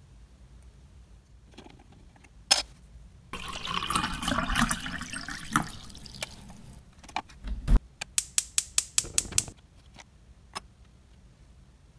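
Water running into a miniature red stock pot for about three seconds. It is followed by a few light knocks and a quick even run of about eight sharp clicks, roughly five a second.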